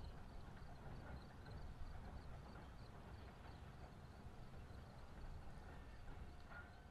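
Near silence: faint outdoor background with a steady low rumble and light, regular ticking.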